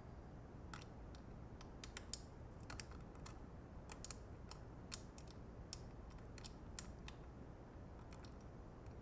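Scattered light clicks and taps, irregular and about two a second, from small parts and tools being handled while reassembling a spin bike.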